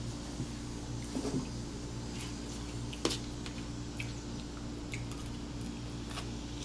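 Quiet eating sounds: chewing and biting into pizza and french fries, with a few light clicks and taps from handling the food on a metal pan, the sharpest about three seconds in. A steady low hum lies underneath.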